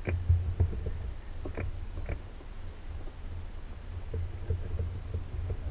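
Small waves lapping and slapping against the hull of a drifting boat, over a steady low rumble, with a few short slaps near the start and around two seconds in.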